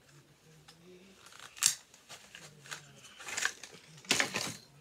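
Three short, sharp noises of packaging being worked off a new headband, the loudest near the end.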